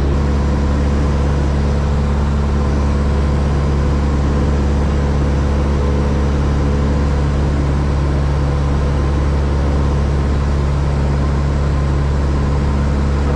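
Cessna 172's piston engine and propeller running steadily in flight, a constant drone heard inside the cockpit.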